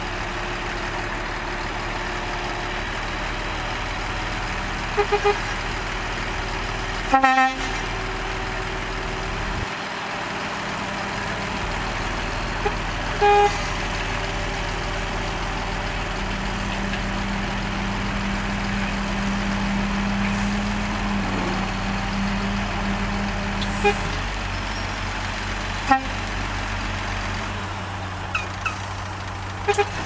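Dump truck's diesel engine running steadily while its hydraulic hoist tips the loaded bed, the engine note rising for several seconds past the middle. A vehicle horn gives a few short toots early on, the loudest about seven seconds in.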